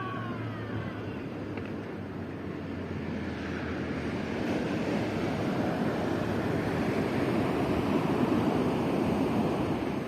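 Atlantic surf on a beach: the wash of a wave builds over several seconds, peaks, then falls away near the end.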